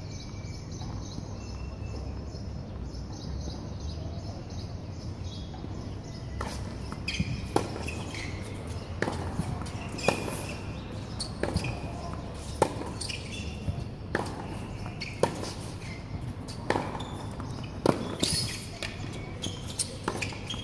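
Tennis rally: a tennis ball struck back and forth with rackets and bouncing on a hard court, a string of sharp pops starting about six seconds in. The loudest racket strikes come about every two and a half seconds.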